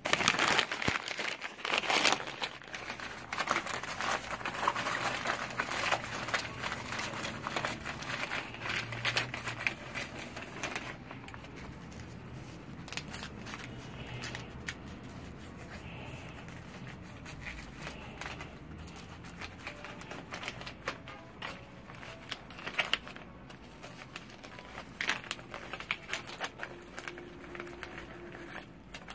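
Stiff gold gele head-tie fabric crinkling and rustling as it is pleated, pulled and tucked around a head. The crackle is busiest in the first ten seconds and lighter after.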